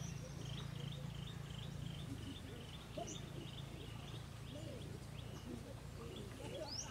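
Outdoor bird ambience: a small bird repeats a short chirp about three times a second for a couple of seconds, with a few single rising chirps later, over a low steady hum.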